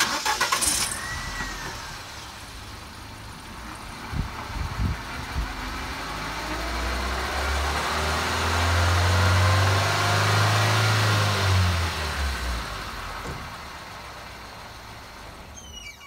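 Nissan car's engine running in gear with the jacked-up left front wheel spinning freely in the air. It speeds up to a peak around the middle, then eases off. The wheel turns without the hum of a bad wheel bearing, so this hub bearing is sound.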